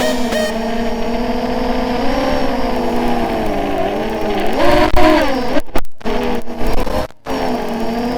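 Racing quadcopter's brushless motors (Cobra 2206/2100KV) and propellers whining in flight, the pitch rising and falling with throttle and climbing sharply about five seconds in. The sound cuts out suddenly twice near the end, briefly each time.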